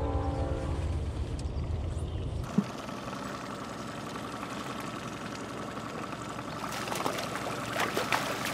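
Boat outboard motor idling with a low rumble, cut off abruptly after about two and a half seconds. It gives way to a steady background hiss of moving water and a striped bass splashing at the surface near the end as it is reeled to the boat.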